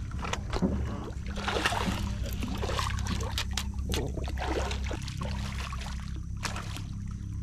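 Water splashing and knocking at the side of a boat as a hooked drum is pulled in. A low steady hum runs underneath.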